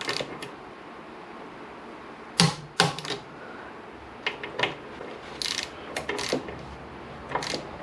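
Socket ratchet clicking in short runs, with metal tools clinking against a motorcycle brake caliper as its bolts are worked; the two loudest clacks come about two and a half and three seconds in.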